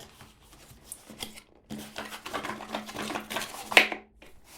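Hands handling a smartphone's retail box as it is opened: faint clicks, then a stretch of close crackling and scraping of cardboard and packaging, with a sharper tap near the end.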